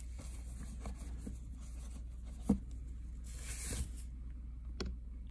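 Gloved hands handling watches in a padded watch box: faint rustling of cloth gloves against the cushions, with a few small clicks, the sharpest about two and a half seconds in.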